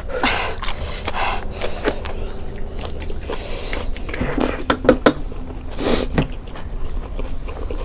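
Close-miked eating of black bean noodles: irregular slurps and chewing, with scattered short clicks.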